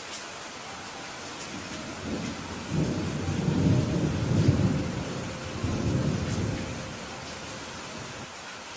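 Steady rain falling, with a roll of thunder that rumbles up about two seconds in, peaks twice and fades out by about seven seconds.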